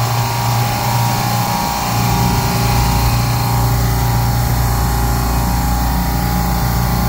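Commercial refrigeration rack compressors running with a steady hum and a few steady tones. The second compressor stage is cut in, pulling the suction pressure down.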